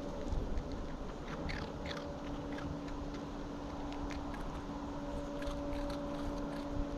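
Fox cub chewing and crunching food close up, a scatter of short sharp clicks in two bouts, over a steady hum.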